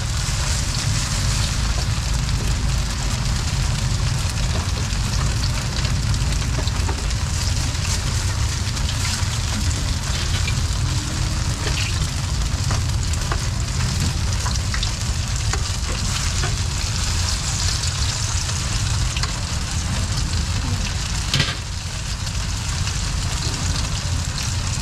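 Garlic chive cakes sizzling steadily as they fry in shallow oil on a large flat round griddle, over a low rumble, with one sharp knock near the end.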